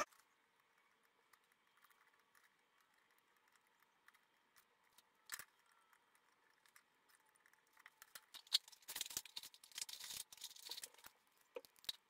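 Near silence for the first half, then a cluster of faint clicks and snips from about eight seconds in: side cutters trimming the excess leads of a newly soldered capacitor on a washing machine control board.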